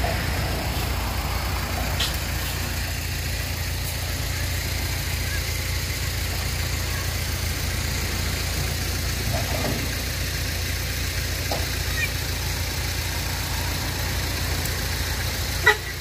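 Hyundai 5-ton dump truck's diesel engine running steadily at idle, its tipper bed raised after dumping soil and starting to lower. A sharp knock near the end.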